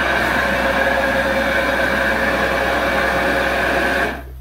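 Rotary carpet-cleaning machine with a vacuum hose running: a loud, steady whine over a hiss that cuts off suddenly about four seconds in.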